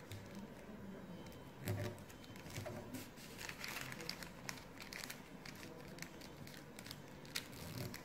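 A sheet of glossy origami paper rustling and crinkling faintly as hands fold and press it flat, in scattered short rustles.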